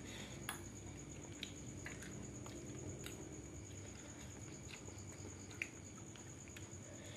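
Quiet eating by hand: scattered soft clicks and smacks of fingers handling food and chewing, about six in all, over a faint steady high whine.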